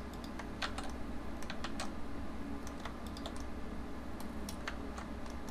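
Computer keyboard keys clicking in scattered, irregular taps, over a faint steady low hum.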